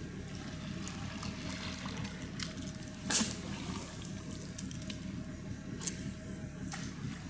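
Water lapping and trickling with small drips and splashes, one louder splash about three seconds in.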